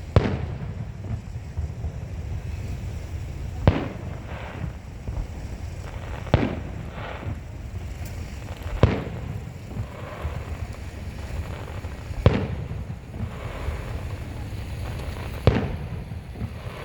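Aerial fireworks shells bursting overhead: six sharp bangs spaced about three seconds apart, each followed by a short trailing rumble.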